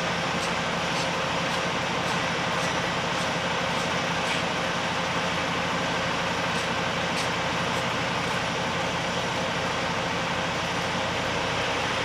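Steady mechanical drone with a low hum, and faint, irregular light ticks over it.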